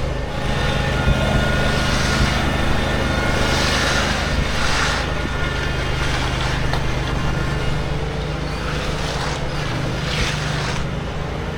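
An engine running steadily with a constant low hum. Brief rushing, scraping noises rise over it about 2, 4 to 5, and 10 seconds in.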